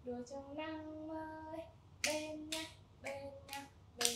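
A voice singing a children's action song in long held notes, joined about two seconds in by several sharp hand claps keeping time with the song.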